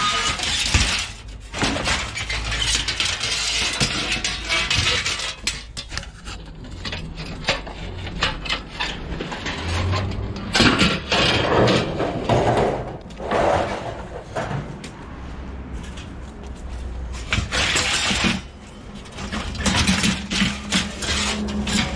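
Scrap aluminium pieces being thrown onto a pile, clattering and clanking in irregular runs of metal knocks.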